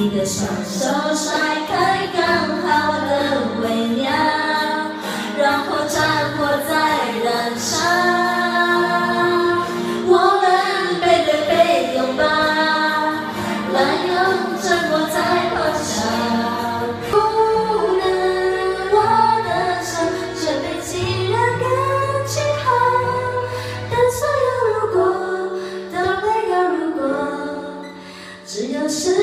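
Two women singing a song into handheld karaoke microphones over a karaoke backing track, with a brief drop in the music just before the end.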